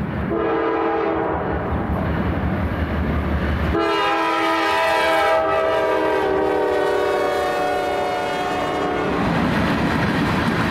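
A diesel freight train passes, its locomotive air horn sounding a chord in one long blast and then a second, louder long blast that ends about nine seconds in, over the low rumble of the locomotives. After the horn stops, the freight cars roll by with the clickety-clack of wheels on rail joints.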